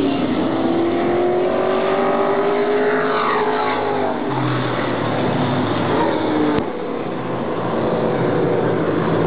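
Stock race car engines running at speed on an oval track, with one car passing close by about three seconds in, its engine note falling sharply as it goes past. The sound drops abruptly with a click about two-thirds of the way through.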